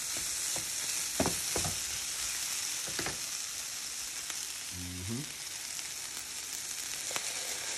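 Diced chicken breast sizzling in a hot nonstick frying pan as it is stirred with a spatula, with a few sharp clicks of the spatula against the pan.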